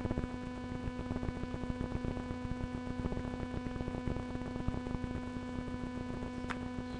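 Steady electrical hum from a webcam microphone, with crackling static throughout and one sharp click a little before the end.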